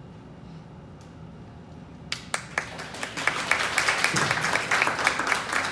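Audience applauding: a few scattered claps about two seconds in, quickly swelling into full applause from many people.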